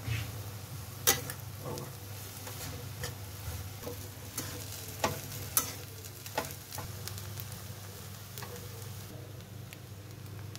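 A metal spatula stirring and scraping egg fried rice in a metal kadhai over a steady frying sizzle. Sharp metal clinks of the spatula on the pan come at irregular moments, the loudest about a second in.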